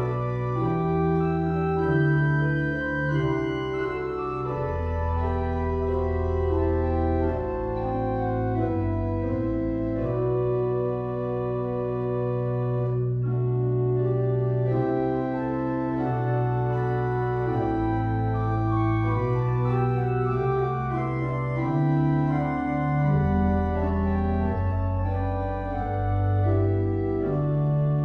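Organ playing slow, sustained chords over held bass notes. The harmony changes every second or two.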